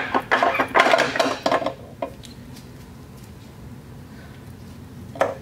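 Metal parts clinking and scraping as a tight-fitting gear and shaft assembly is wiggled out of a Mud Buddy Sport V mud-motor transmission housing, where its bearings sit in a very tight fit. The clatter is dense for about the first two seconds, and there is one sharp metal clink near the end.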